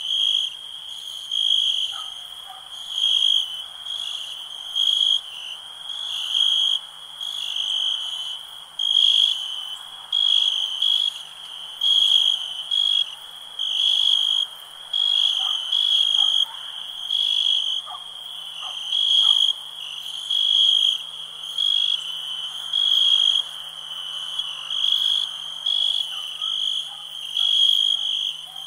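Night-time chorus of calling frogs and insects: a high chirping call repeats about once a second over a softer continuous chorus, with a faint steady low hum underneath.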